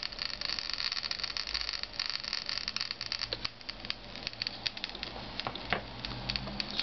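Plastic scintillation detector's audio output crackling with rapid, irregular clicks, each click a radiation count from a thorium rod held by the BC-408 scintillator. About three seconds in the clicks thin out to a sparser, separate ticking, the count rate falling as the thorium rod is moved away.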